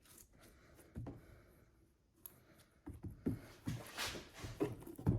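Handling noise as a silicone mat is positioned and pushed into a Gold Cube's sluice tray: a scatter of soft knocks and rustles starting about three seconds in, after a quiet stretch.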